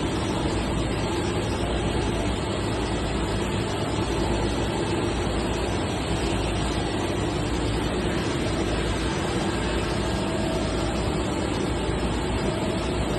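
Industrial sheet-metal machinery running with a steady, even mechanical noise and a faint constant hum, without distinct strokes or impacts.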